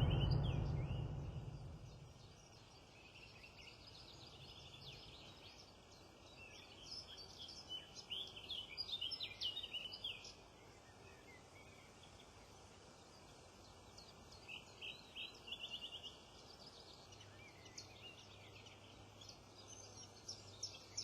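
Background music fading out at the start, then faint small-bird chirping: rapid short high chirps in two bouts, one in the middle and another about two-thirds of the way through.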